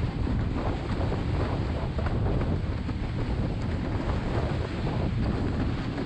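Wind buffeting the microphone of a camera on a planing windsurf rig, a heavy low rumble, with water hissing and splashing past the board.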